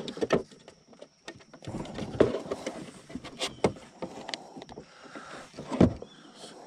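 Irregular knocks, scrapes and thumps of a bass being handled on a plastic fish-measuring board aboard a fishing kayak. The loudest thump comes near the end, as the fish is lifted off the board.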